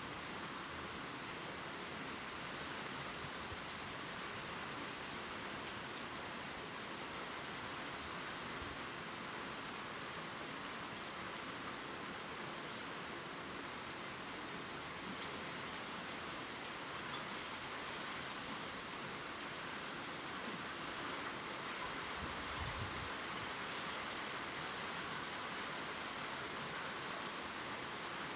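Steady gentle rain falling on leaves, an even patter with faint scattered drop ticks.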